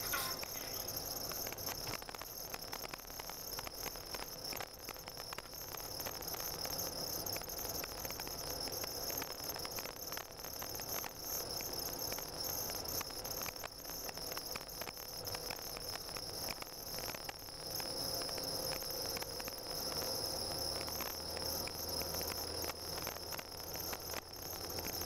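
A car driving on a snow-covered road, heard from inside the car: steady running noise with a constant high whine and fine crackling, likely from the tyres on the snow. A low hum comes up about twenty seconds in.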